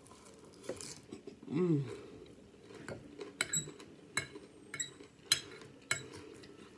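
An eating utensil clinking and scraping against a dish while salad is picked up, with about five sharp, ringing clicks in the second half. A brief hummed "mm" comes about a second and a half in.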